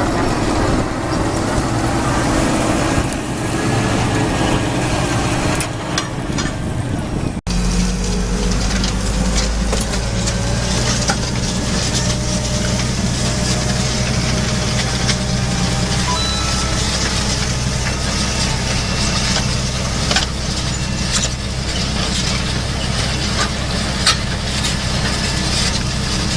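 Claas Axion tractor's diesel engine running steadily under load, pulling a plough. About seven seconds in there is an abrupt cut to a steadier, deeper engine drone.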